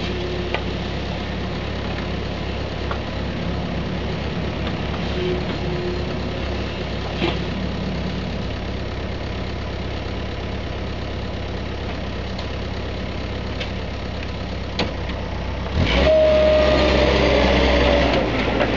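Diesel engines of a Kubota mini excavator and a 3.5-tonne site dumper running steadily during loading, with a few short knocks. About 16 s in it grows much louder, with a slightly falling whine, as the loaded dumper revs and drives off.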